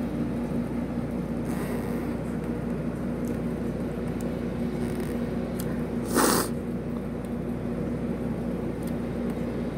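A person chewing hot wings, with faint wet mouth clicks over a steady background hum. One short, loud hissing noise about six seconds in, such as a sharp breath or slurp.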